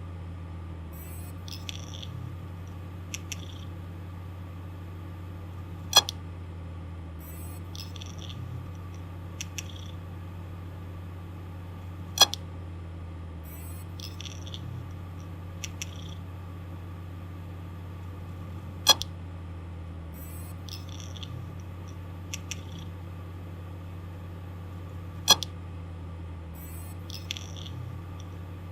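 Failing hard disk drive running with a steady low hum, its malfunction clicks repeating in a cycle of about six seconds: a cluster of soft scratchy clicks, then one sharp loud click, four times over. The clicking and scratching is the sign of a mechanical fault inside the drive.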